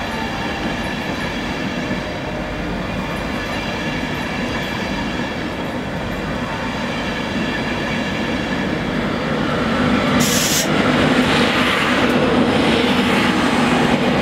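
InterCity 225 electric train's Mark 4 coaches rolling past, a steady rumble of steel wheels on rail with a faint steady whine. About ten seconds in a short sharp hiss cuts in, and the rolling noise grows louder as a train passes close by.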